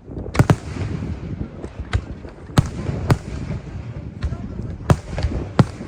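Fireworks display shells bursting in a string of sharp bangs, roughly one a second and some in quick pairs, over a continuous crackling rumble.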